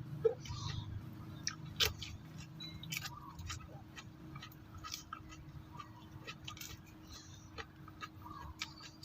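Close-up chewing of raw bitter gourd: irregular crisp crunches and wet mouth clicks.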